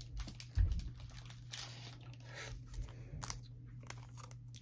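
A trading card being slid into a soft plastic penny sleeve: faint crinkling and rustling of thin plastic with small clicks of card handling, and a soft low thump about half a second in.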